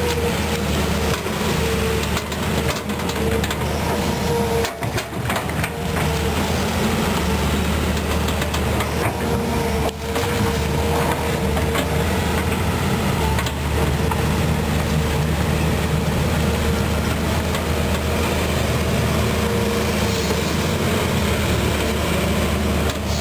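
Volvo EC210B excavator's diesel engine running steadily while the boom and bucket work, with a steady tone held above the engine's low note.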